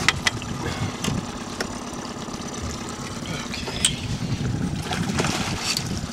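A boat's outboard motor idling low and steady, with water sounds and a few sharp knocks, one right at the start and one about four seconds in.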